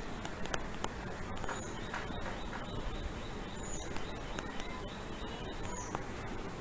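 Steady low background hiss with a few faint clicks and brief, faint high chirps, each falling slightly in pitch, about every two seconds.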